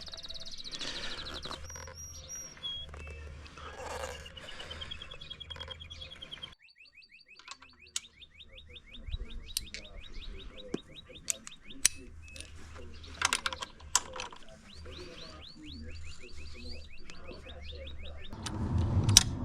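Small birds chirping and trilling in the background in rapid repeated runs of high notes, with scattered sharp clicks and knocks.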